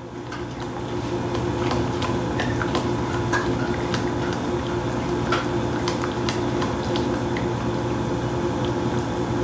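A spoon stirring sour cream into a thick, creamy sauce in a pot, with wet squishing and light clicks of the spoon against the pan every second or so, over a steady hum.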